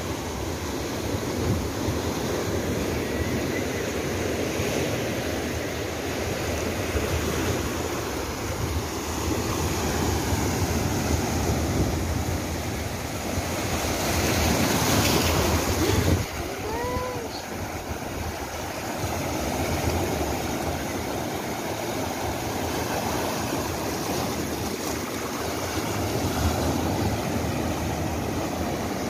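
Sea surf: waves breaking and washing over rocks and up the sand in a steady rush of foaming water. It grows louder for a couple of seconds around the middle, then drops suddenly.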